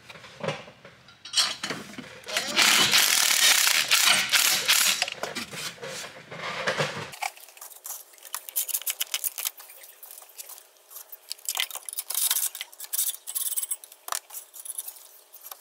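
A Makita 18V cordless tool runs in a few dense, rattling spells while the turbo mounting bolts are worked loose. After that come scattered light metallic clinks and scrapes of tools and bolts against the engine.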